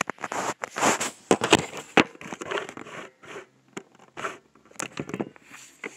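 Irregular rustling, scraping and sharp knocks close to a phone microphone: the sound of the phone being handled and moved about.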